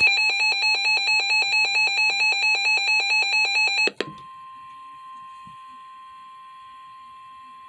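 An emergency weather alert sounds: a loud, rapidly repeating electronic alarm beep for about four seconds. It then cuts suddenly to a quieter, steady single-pitch tone, the NOAA Weather Radio warning alert tone that comes before a National Weather Service warning message.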